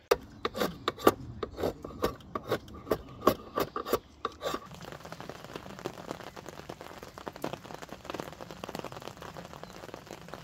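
A run of short, sharp rubbing and scraping strokes, a few a second, for the first four seconds or so. After that comes a steady, even patter of rain.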